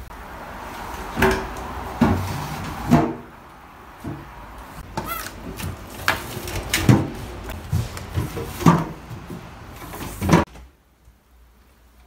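Freezer door and plastic freezer drawers of a new Iris Ohyama refrigerator being opened and handled: a series of knocks, thumps and plastic clicks, with a short squeak about five seconds in. The sounds stop abruptly near the end.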